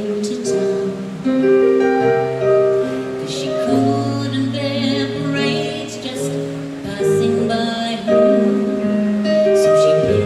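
A slow ballad performed live by a small band: a woman singing over sustained chords and bass guitar, with light cymbal touches.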